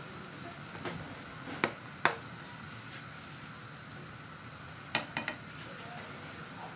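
Metal spatula knocking and scraping against an aluminium wok while snails simmering in coconut milk are stirred. There are a few sharp clinks about a second and two seconds in, and a quick cluster of three about five seconds in, over a steady low hiss from the simmering pot and gas burner.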